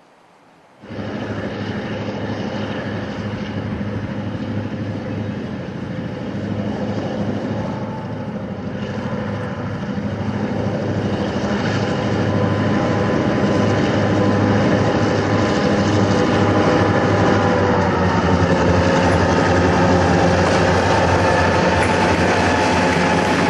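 EMD GP9 diesel locomotive's two-stroke engine droning as it pulls a freight train of covered hoppers past, growing gradually louder as it approaches. The sound comes in suddenly about a second in.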